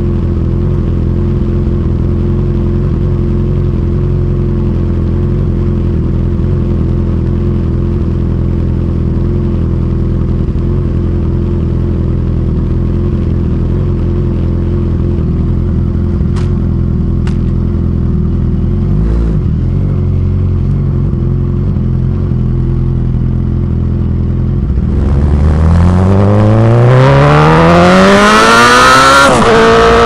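Suzuki GSX-S1000's inline-four engine idling steadily through a Firetong Willy Made aftermarket exhaust. About 25 seconds in, the bike pulls away hard, the engine pitch rising steeply, with a gear change near the end.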